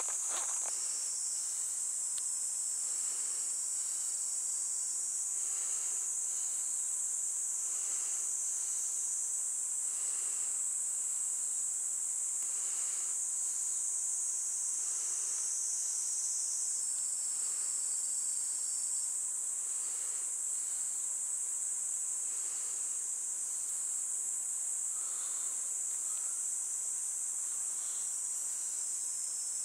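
A steady, high-pitched chorus of insects chirring, with a second, slightly lower insect call joining now and then.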